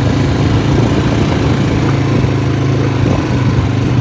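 Quad bike (ATV) engine running steadily.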